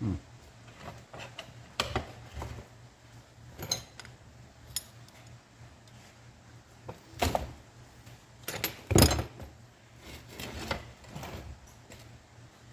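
Metal tools and steel tractor clutch parts clinking and knocking during disassembly: a scattering of separate sharp hits, the loudest about nine seconds in.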